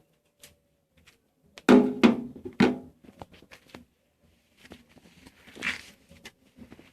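CO2 airsoft replica revolver (Ruger Super Hawk style) firing three sharp shots within about a second, followed by lighter mechanical clicks and a short rustle.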